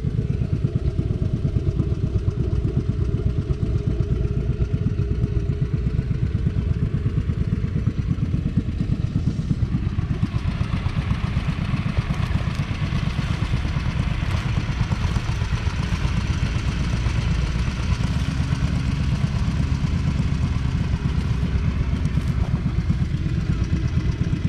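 1944 John Deere Model L's 1.1-litre two-cylinder petrol engine running steadily with an even, rapid pulse.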